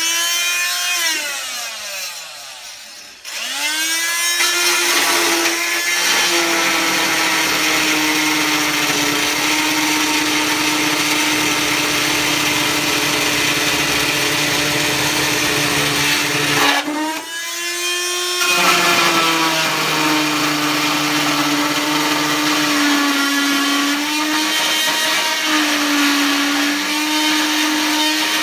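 Oscillating multi-tool running as it cuts through metal, a steady high buzz. It winds down and restarts a few seconds in, stops briefly about two-thirds through and starts again, with its pitch dipping in the last part as the blade bites.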